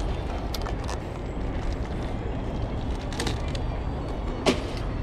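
Open-air flea market background: a steady low rumble with a few light clicks and knocks, and one sharper click about four and a half seconds in.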